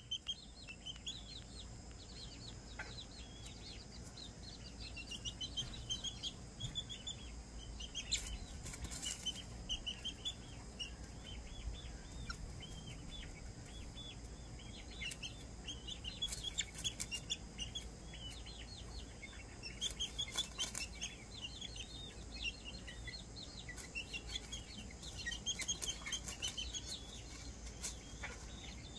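A young Serama bantam chick, nearly eight weeks old, peeping: short, high calls repeated in quick runs with brief pauses between them.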